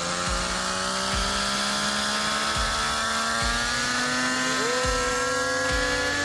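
Scale RC CH-47 Chinook helicopter spooling up, a steady motor-and-rotor whine that rises slowly in pitch.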